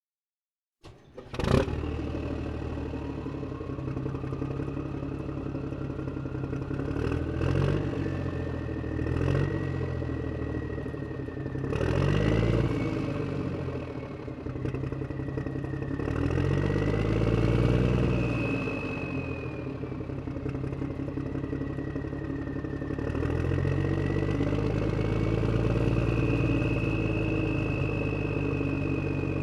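Tractor engine coming in with a sharp knock about a second in, then running while driving, its speed rising and falling several times. There are occasional clunks and a whine that climbs in pitch over the first ten seconds.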